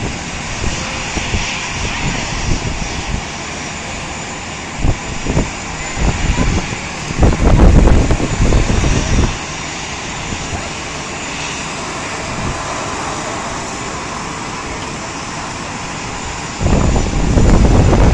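Steady jet aircraft noise across an airport apron, with wind buffeting the microphone in gusts about seven seconds in and again near the end.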